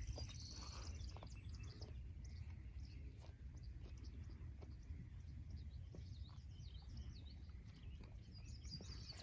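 Faint rural ambience: small birds chirping here and there over a steady low rumble.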